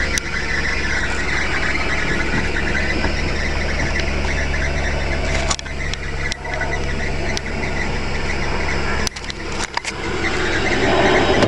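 1999 Nissan Maxima GLE's 3.0-litre V6 idling just after a cold start, heard from inside the cabin, with a steady belt squeak over it. A few short knocks about midway and again near the end.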